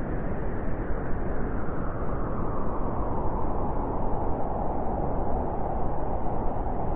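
Blizzard wind blowing steadily, a dense rushing noise with deep rumble, taking on a howling edge that grows stronger over the second half.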